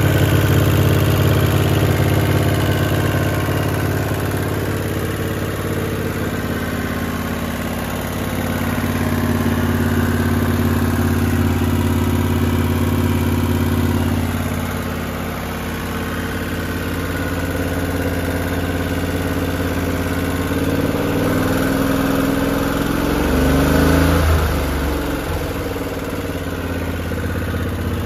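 Kohler CV20S V-twin mower engine running, just brought back to life. Its speed holds steady for a while, then dips and rises several times, most of all in the last third.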